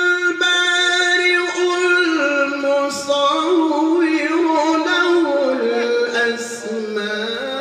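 Male qari chanting a Quran recitation (tilawah) into a microphone, holding one long steady note for about two seconds, then winding through ornamented turns that step lower in pitch toward the end.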